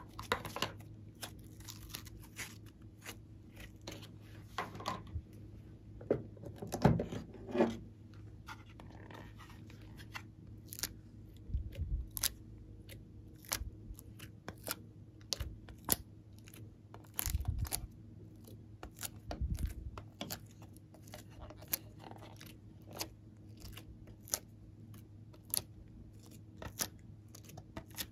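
Hands working slime and soft coloured clay in clear plastic containers: a long run of short sticky clicks and crackles as the material is squeezed out and picked from the palette wells, with a few heavier soft thuds in the middle, over a faint steady hum.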